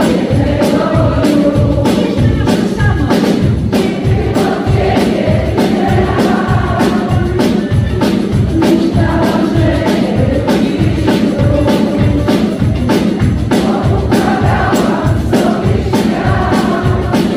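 Live pop band playing a song: drums keep a steady beat under bass, guitars and keyboards, with singing over the top.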